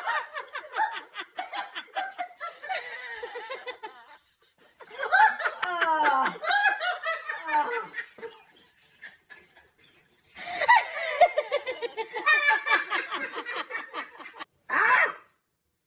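A man laughing hard in three long bouts separated by short pauses, with a brief final burst near the end.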